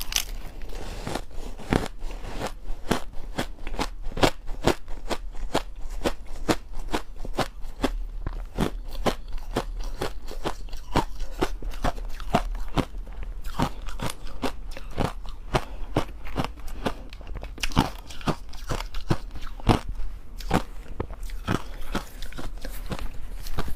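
Crushed ice dusted with matcha and milk powder being bitten and chewed close to the microphone: rapid, crisp crunching, several crunches a second, over a low steady hum.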